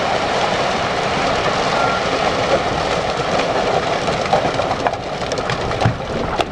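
Rock pouring out of a giant mining dump truck's raised bed and sliding down a spoil pile in a steady rumble, with separate rocks clattering more distinctly in the last couple of seconds.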